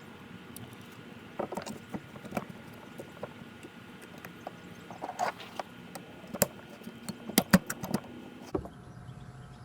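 Small metal brake parts being handled and fitted: irregular sharp clicks and light knocks of pads, hardware clips and caliper pieces, with the busiest cluster of clicks past the middle.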